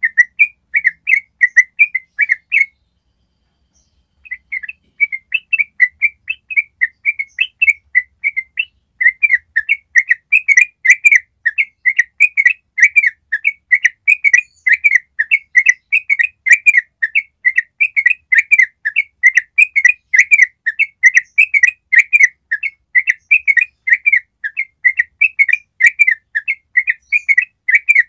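Yellow-vented bulbul (trucukan) singing its long 'ropel' song: a fast run of short, bubbly chirping notes, about three a second. It breaks off once for about a second and a half some three seconds in, then runs on unbroken.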